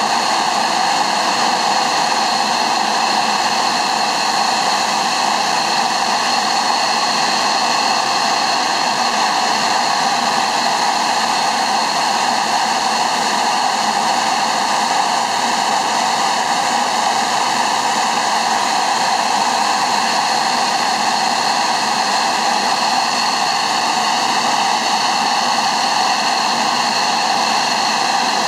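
Dassault Mirage 2000D's SNECMA M53 jet engine running steadily at ground idle: a loud, even rush with a high whine held on one pitch.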